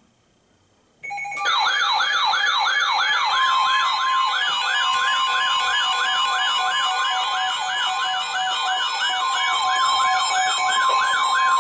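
Weather-radio emergency alert: a fast repeating siren-like wail, about three sweeps a second, starts about a second in, and the steady long warning alert tone of NOAA Weather Radio joins it a couple of seconds later. It announces a special marine warning.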